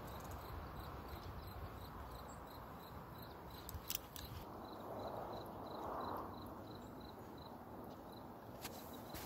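Faint outdoor riverbank ambience: a low, steady rumble of wind and water under a high, even chirp repeating about three times a second. A few sharp clicks come about four seconds in.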